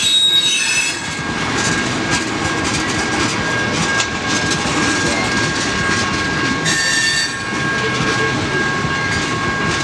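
CSX freight train's cars rolling past through the crossing: a steady rumble and clatter of wheels on rail, with a continuous high-pitched squeal and a brief sharper wheel squeal about seven seconds in.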